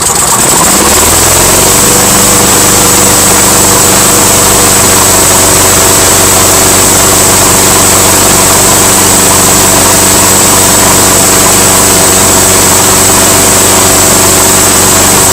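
Briggs & Stratton engine on a Rally BP75AR push mower, just caught on a cold start, rising to speed over about the first second and a half, then running steadily at full throttle.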